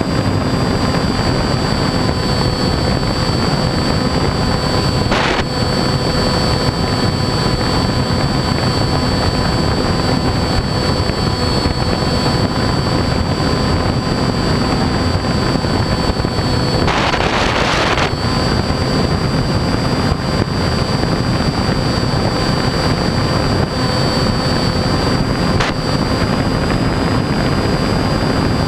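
RC airplane's motor and propeller running steadily in flight, heard from a camera on board: a thin high whine over rushing air. About seventeen seconds in there is a brief, louder rush of noise lasting about a second.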